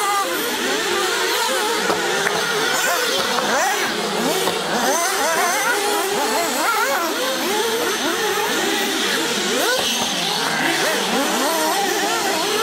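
Several 1/8-scale nitro RC rally-cross cars racing, their small two-stroke glow engines whining and revving up and down over one another without pause.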